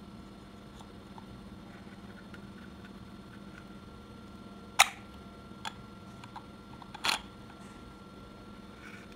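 Two sharp clicks about two seconds apart, the first the loudest, with a few fainter ticks between them, from handling the plastic housing and parts of a small brushless DC fan motor, over a faint steady hum.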